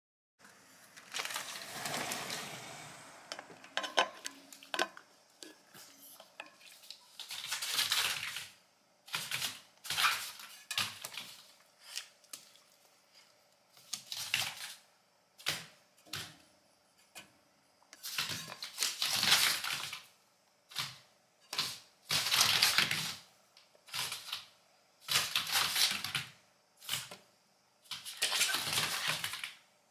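A small Shiba Inu (mameshiba) jumping and scrabbling excitedly, its paws and claws clattering and scuffling in repeated short bursts about every second or two.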